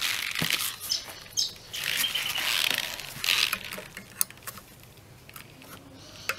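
Steel long-nose pliers scraping and clicking against the end of a mower's rear roller shaft as the Woodruff key is worked out of its keyway. Scraping handling noise comes in bursts over the first few seconds, followed by a few sharp metal clicks.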